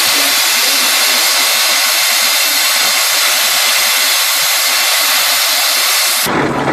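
Aultman-Taylor steam traction engine venting steam with a loud, steady hiss, which cuts off suddenly near the end.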